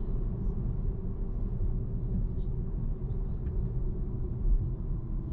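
Steady road and engine rumble inside a moving car's cabin, a low even drone.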